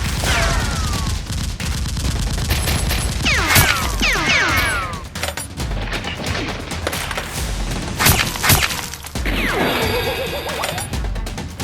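Rapid volleys of gunfire sound effects, dense quick shots with several sharper cracks, laid over background music with a low, steady beat. Clusters of quick falling, ringing pitches come in about a second in, around four seconds in, and near the end.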